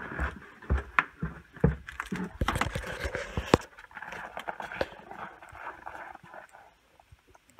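Footsteps of a person and a booted dog going down snowy wooden deck stairs: a run of sharp knocks and scrapes over the first few seconds, then fainter steps in the snow.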